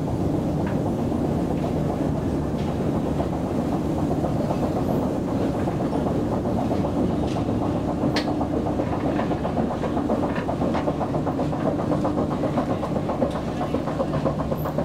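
A long metro escalator running under a rider going up: a steady mechanical hum with a low tone and scattered clicks from the moving steps. A quick rhythmic clatter comes in near the end at the top landing.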